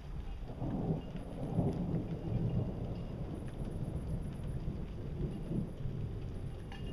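Thunder rolling, swelling about half a second in and rumbling on for several seconds, with rain falling.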